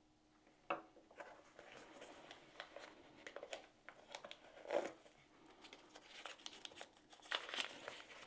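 Faint handling noise of small plastic gear, the DJI Mic 2 wireless microphone parts, being turned over in the hands: scattered light clicks and rustles. The sharpest click comes about a second in, with louder ones near the middle and near the end.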